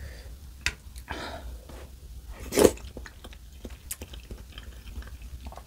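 Close-up mouth sounds of someone chewing a spoonful of instant ramen noodles and egg: wet clicks and smacks throughout. There is one louder, sharper noise about two and a half seconds in.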